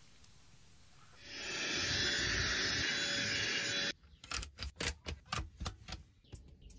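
A steady rushing hiss that stops abruptly, then a quick series of sharp clicks as campervan cabinet locker push-button latches are pressed and checked.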